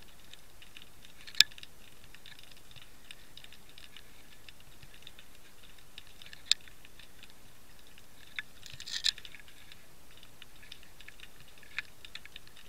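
Faint scattered clicking and crackling over a low hiss, with a few sharper single clicks and a short cluster of clicks about two-thirds of the way through.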